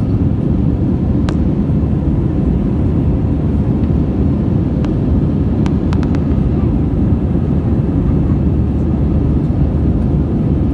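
Steady low roar of an Airbus A320's engines and slipstream heard from inside the passenger cabin in flight, with a few faint clicks.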